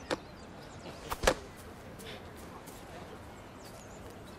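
A short sharp click at the start, then two sharp hits close together about a second in, the second the loudest, over a faint steady outdoor background.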